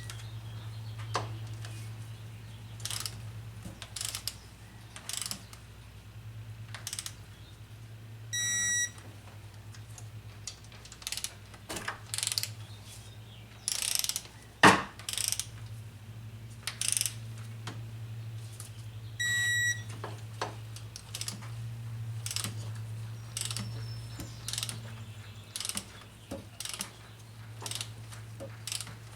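Hand ratchet wrench clicking in short, irregular runs as bolts are turned, under a steady low hum. A short, high electronic beep sounds twice, about a third and about two thirds of the way through.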